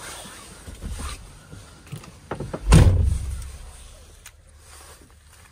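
A van door shut with one heavy, low thump about halfway through, with small clicks and handling rustles around it.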